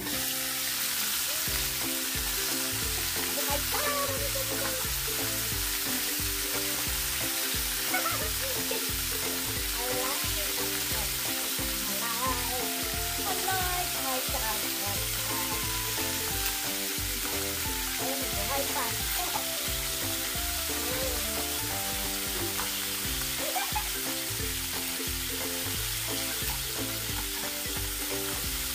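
Steady sizzling of a pot or pan on the hob as food cooks, with faint background music underneath.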